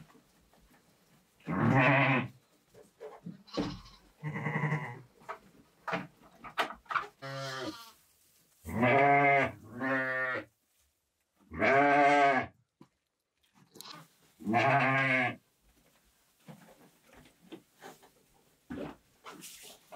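A goat bleating repeatedly: about seven calls, each around a second long with a quavering pitch. The loudest come in the middle and second half.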